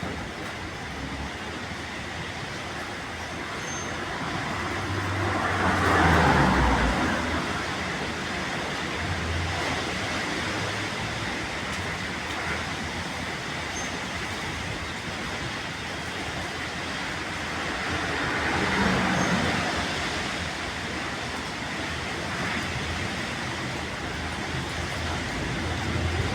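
Strong mountain wind rushing steadily with a rumbling buffet on the microphone, swelling into two stronger gusts, about six seconds in and again around nineteen seconds.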